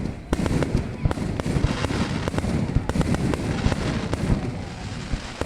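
Fireworks display in full barrage: rapid, irregular bangs and crackling bursts overlapping one another.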